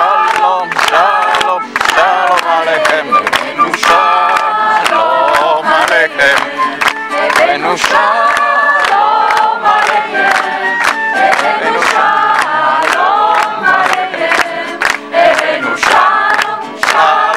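A mixed group singing a song together in chorus, with acoustic guitar and flute, and hands clapping steadily on the beat, about two claps a second.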